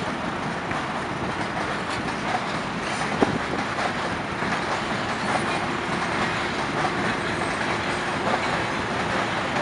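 ChS7 twin-section electric passenger locomotive, a Škoda-built DC machine, pulling a passenger train slowly away from a standstill. A steady running noise, with a single sharp knock about three seconds in and a faint steady tone joining about halfway.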